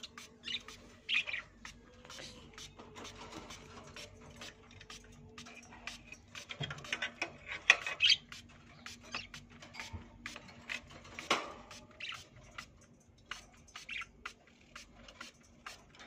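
Small caged parakeets, budgerigars among them, giving many short chirps and squawks, busiest around the middle.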